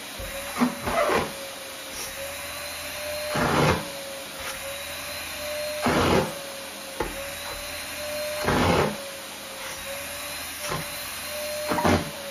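Canister vacuum cleaner running with a steady motor whine. Louder rushing swishes come every two to three seconds as its hose nozzle is passed over stockings and fabric.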